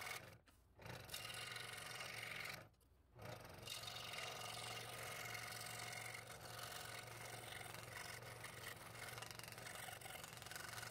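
Scroll saw running with a number 5 blade, cutting a thin wooden workpiece: a steady motor hum under a constant cutting noise. The sound drops away briefly twice in the first few seconds.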